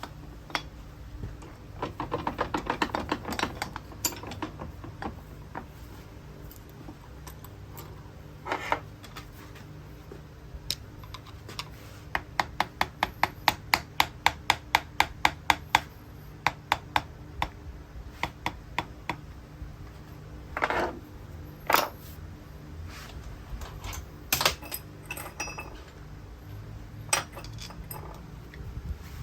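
Metal parts and tools clinking and knocking as they are handled, over a steady low hum. A fast, even run of clicks, about six a second, comes in the middle.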